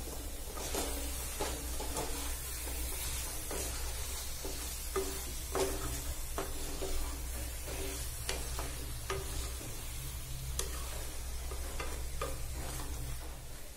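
Wooden spatula stirring chicken pieces through a thick onion-tomato masala in a kadhai, with irregular scrapes and knocks against the pan over a steady sizzle of frying.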